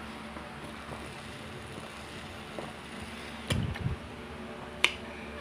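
Refrigerator humming steadily, its doors open. There is a dull thump about three and a half seconds in and a sharp click near the end.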